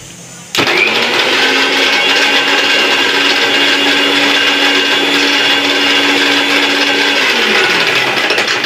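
Bajaj mixer grinder switched on about half a second in, its motor running at high speed while a plastic ball is battered by the blades inside the steel jar. The motor's tone drops near the end while the clatter goes on.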